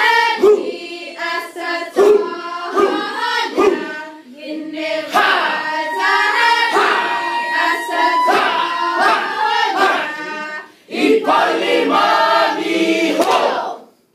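A group of women chanting in unison in Chamorro, with sharp hand strikes on the beat in the first few seconds. The chant breaks off briefly about eleven seconds in, resumes, and stops just before the end.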